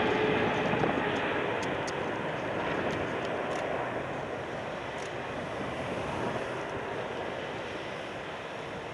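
Boeing 777 airliner's jet engines at reduced landing thrust on final approach, the engine noise fading steadily as the aircraft moves away; a high whine fades out in the first second or so.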